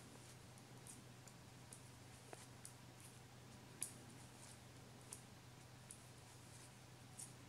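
Faint, irregular clicks of metal knitting needles touching as stitches are knitted, one sharper click about halfway through, over a low steady hum.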